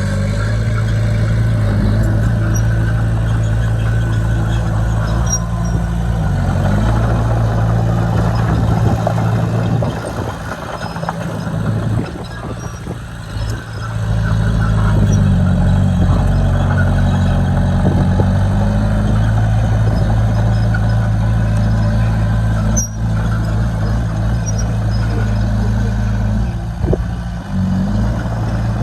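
Heavy diesel engine of earthmoving equipment running under load, its pitch shifting briefly a few times, with a quieter stretch about ten seconds in.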